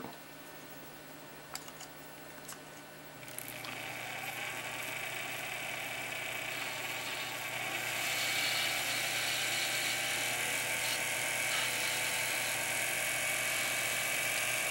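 Watchmaker's lathe spinning while a hand graver cuts the brass workpiece: a steady scraping hiss that starts about three seconds in and grows louder about halfway through.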